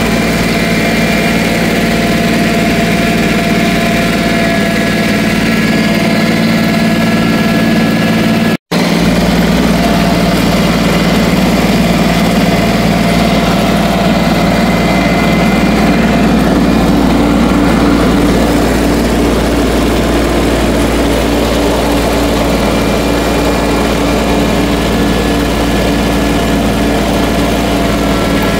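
New Holland TC18 compact tractor's three-cylinder diesel engine running steadily, its note shifting slightly about halfway through.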